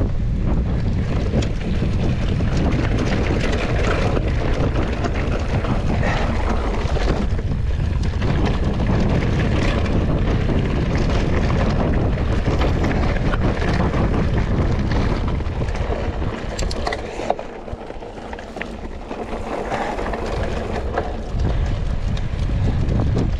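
Wind buffeting the microphone of a mountain bike in motion on a dirt trail, with scattered clicks and rattles. It eases off for a few seconds in the last third, then picks up again.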